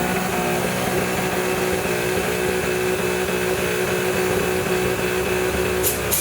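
Engine of a Suzuki Jimny-based off-road trial machine running, held at steady revs with an unchanging pitch. Two short sharp clicks come near the end.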